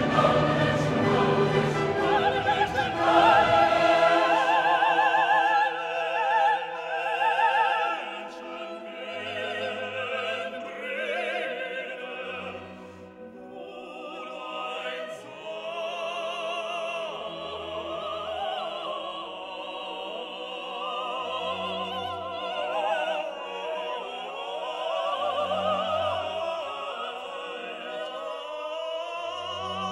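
Background music: classical operatic singing with vibrato over an orchestra, fuller and louder for the first few seconds.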